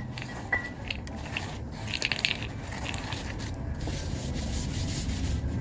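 Hand work on a vehicle's rear axle: small clicks and knocks of tools and parts, with short rubbing and scraping sounds, the loudest a brief rasp about two seconds in, over a steady low hum.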